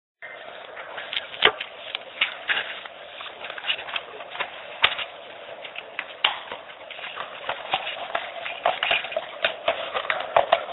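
Room noise: a steady hiss with scattered, irregular clicks and knocks, in a dull recording with no high end.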